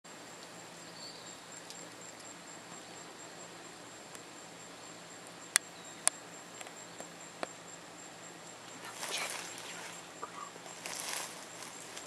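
Faint outdoor ambience with a thin, steady high-pitched tone. Two sharp clicks about half a second apart near the middle, with a few fainter ticks, then two short spells of dry rustling in the last few seconds.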